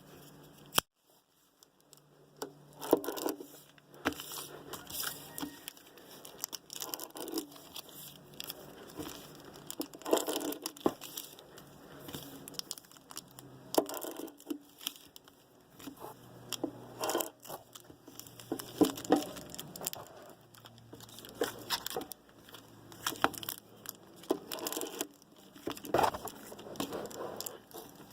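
Foil wrappers of football trading card packs being cut open with a knife and pulled apart: irregular crinkling and tearing with scattered sharp clicks, in bursts with short pauses.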